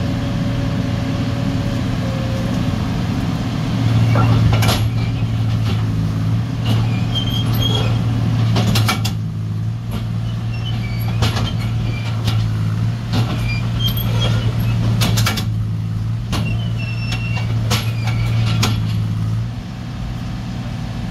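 Amphibious excavator's diesel engine running hard under load as its pontoon tracks are driven forward and back to work the wedged machine free, with scattered metallic clanks and a few brief squeals from the track chains. The engine note rises about four seconds in and eases off near the end.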